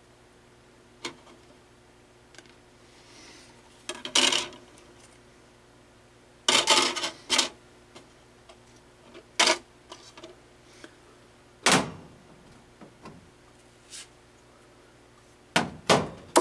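Scattered clicks and short plastic clatters as CDs are set into and moved on the plastic disc carousel of a Panasonic SL-PC394 5-disc CD changer, with one heavier knock about two-thirds of the way through.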